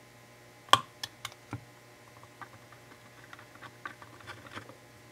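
Small clicks and taps of a small bladed screwdriver prying at the plastic locking clip of a flat ribbon-cable connector on a circuit board. There is one sharp click under a second in, a few lighter clicks just after it, then faint scattered ticks.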